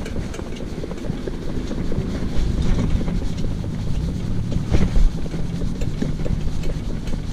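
Pony cart rolling along a tarmac road at a walk: a steady low rumble from the wheels and harness, with wind buffeting the microphone and a louder knock about five seconds in.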